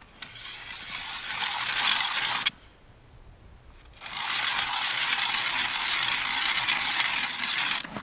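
Hand ice auger drilling into ice, its blades grinding and scraping in two spells: about two and a half seconds, a short pause, then about four seconds more.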